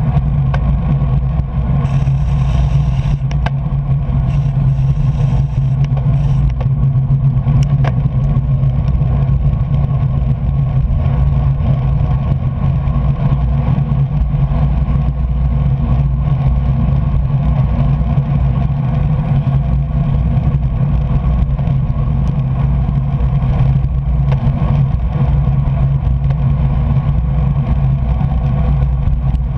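Steady rush of wind and tyre noise on a bike-mounted camera's microphone while riding at race speed on wet roads, with a little more hiss in the first few seconds.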